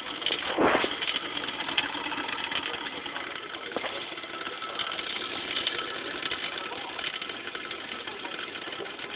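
Wilesco D365 toy steam roller's small steam engine running with a fast, even clatter. A brief loud burst of noise comes under a second in.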